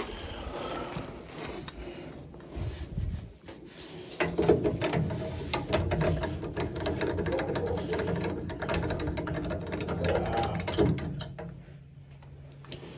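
A small motor running with dense rapid mechanical clicking and rattling that stops about eleven seconds in, leaving a low steady hum.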